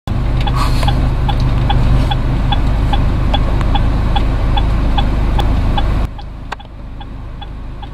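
Car turn-signal indicator ticking steadily, about two and a half clicks a second, over a low steady rumble in the cabin. The rumble drops sharply about six seconds in while the ticking goes on.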